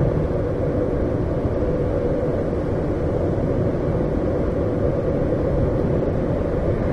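Steady road and engine rumble inside the cabin of a moving passenger van on a freeway.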